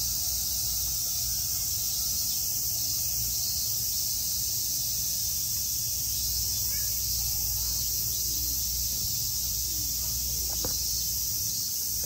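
Steady high-pitched chorus of cicadas buzzing without a break, over a low background rumble.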